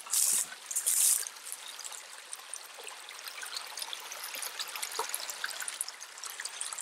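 Water trickling and running through a drain under a path, a steady light splashing. Two short, loud rustles come in the first second or so.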